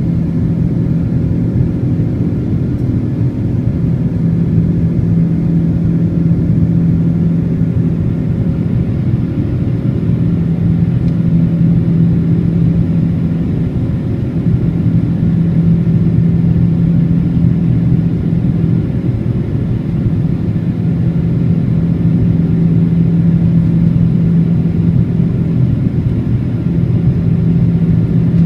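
Boeing 777-200's jet engines running, a steady low rumble with a strong even hum that holds its pitch throughout.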